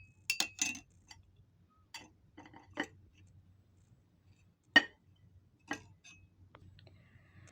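A metal spoon clinking against a drinking glass: a quick run of ringing clinks just after the start, then a few scattered single taps, one sharp and loud about halfway through.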